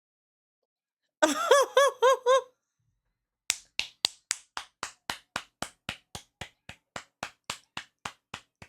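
Cartoon soundtrack: after a second of silence, a quick run of short pitched notes that each rise and fall, then a steady series of sharp clicks or claps, about four a second, slowly fading.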